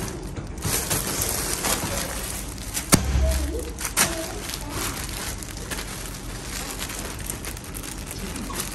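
Plastic packaging bags crinkling and rustling as they are handled and opened, with a sharp knock about three seconds in and another click a second later.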